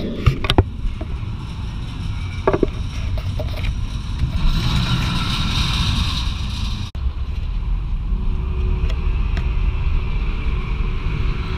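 Magnum XL-200, an Arrow steel hyper coaster, heard from the ground: a train running along the steel track, with wind on the microphone and a few sharp clicks in the first seconds. After a cut about seven seconds in comes a steady hum with one held tone, the chain lift drawing a train up the lift hill.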